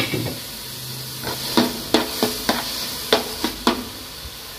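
Chopped tomatoes and onions sizzling in oil in a metal pot while a ladle stirs them. From about a second and a half in, the ladle knocks against the pot in a quick run of about seven knocks.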